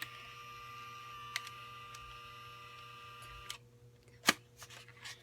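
Instax instant camera giving off a steady high electronic hum that cuts off after about three and a half seconds, followed by a sharp click.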